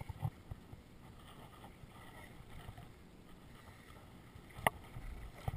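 Low, steady wind and water noise around a small fishing boat, with a few light knocks at the start and one sharp click near the end.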